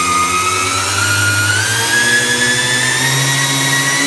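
Three AstroFlight 3220 brushless motors spinning a belt reduction drive on a bench, giving a loud electric whine with overtones. The pitch climbs steadily as the motors speed up.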